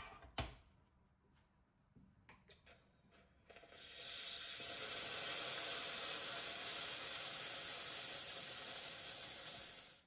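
Rancilio Silvia Pro steam wand purging steam into a glass bowl. A steady hiss starts about four seconds in and stops abruptly near the end. The steam flushes cleaning solution out of the freshly cleaned frother wand.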